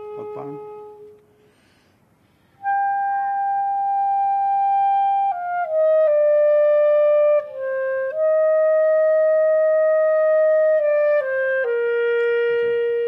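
Clarinet playing a slow, mostly falling phrase of long held notes. One player blows while another works the keys. A held note ends about a second in, and after a short pause the phrase starts.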